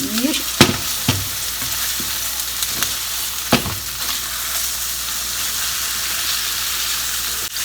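Tofu hamburg patties of ground beef, pork and tofu sizzling steadily in oil in a frying pan, just after being flipped to their golden-brown side. Two sharp knocks sound, about half a second in and about three and a half seconds in.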